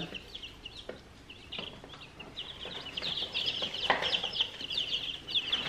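A brood of two-day-old baby chicks peeping: many short, high cheeps overlapping, sparse at first and growing into a steady chorus about two and a half seconds in. A few knocks come from the plastic brooder heat plate being handled and lifted.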